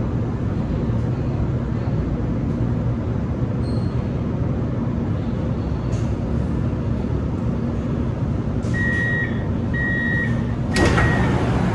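Steady hum and rumble inside a metro car standing at a platform. About nine and ten seconds in come two short high beeps, typical of the door-closing warning, and near the end a sudden louder rush of noise sets in.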